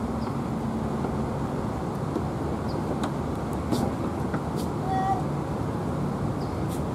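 Steady outdoor background rumble of distant road traffic, with a few faint short high chirps over it.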